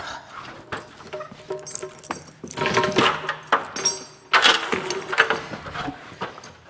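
Loose metal pieces clinking and jangling in a rapid, irregular clatter, with some ringing metallic tones, heaviest through the middle.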